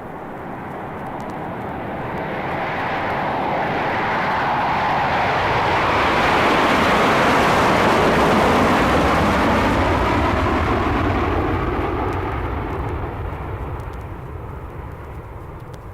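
Jet airplane sound effect: the engine roar grows louder to a peak about halfway through, then fades away as its pitch falls, like a jet passing by.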